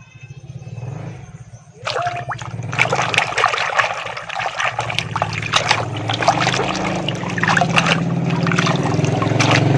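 Water splashing and trickling as toy vehicles are washed by hand in a tub of water, starting about two seconds in, over a steady low hum.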